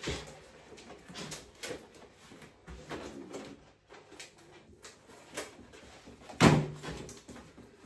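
Handling noise: a carrier bag rustling amid scattered small knocks and clicks, with one louder knock about six and a half seconds in.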